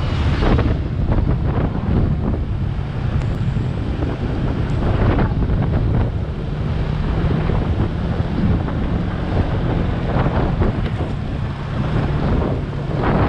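Wind rushing and buffeting over the microphone of a moving vehicle, with its engine running steadily beneath.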